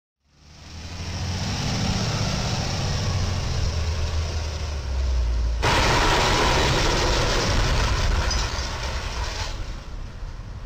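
Truck engine and traffic hum, then about five and a half seconds in a sudden loud scraping crunch lasting about four seconds as a Penske rental box truck's roof catches on a low railroad bridge's crash beam and is torn open.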